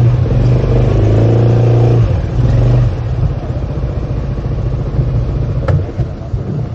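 A motor scooter's engine running under throttle with a steady pitched hum, easing off after about two seconds into a quieter, rougher running. A sharp click comes near the end.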